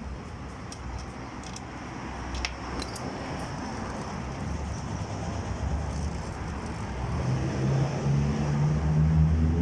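A few light metallic clinks of hand tools on a motorcycle's rear axle and chain adjusters during the chain-tension adjustment, then a low, steady engine hum that grows louder over the last few seconds.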